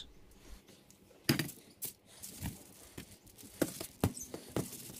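Hands rubbing olive oil into raw chicken skin on aluminium foil: soft, irregular wet slaps and rustles of the foil, the loudest about a second in.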